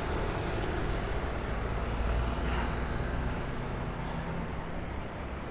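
Road traffic noise: a steady low rumble of vehicle engines and tyres on the road.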